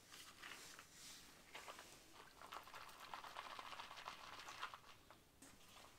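Faint patter of dark granules poured from a small paper cup onto the ice floor, many small ticks in quick succession.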